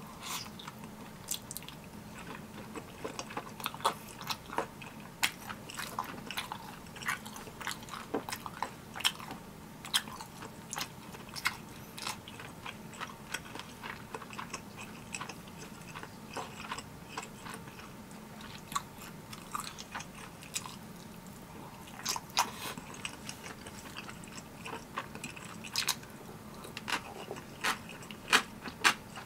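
Close-up chewing and biting as a person eats spicy tteokbokki, with many irregular short mouth clicks.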